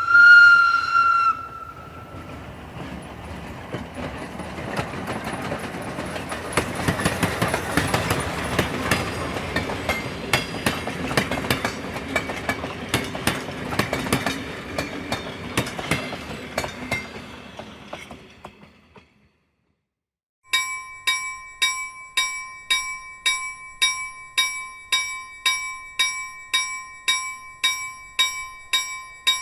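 Train sound effects: a short whistle toot, then the clattering rumble of a train passing that builds and fades away, and after a brief silence a bell dinging about twice a second, like a level-crossing bell.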